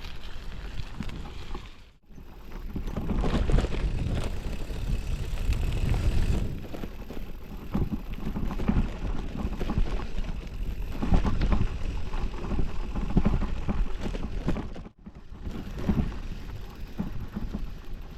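Wind buffeting the microphone while riding, a gusty low rumble that drops out sharply for a moment twice, about two seconds in and near fifteen seconds.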